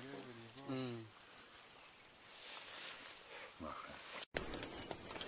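Steady, high-pitched chorus of forest insects, with a person's voice talking in the first second. The chorus cuts off abruptly about four seconds in, leaving much quieter sound.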